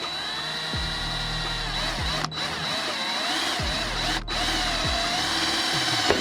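Electric drill running as it bores a hole through the car door's sheet metal. Its whine wavers in pitch as it loads up, cuts out briefly twice and stops near the end.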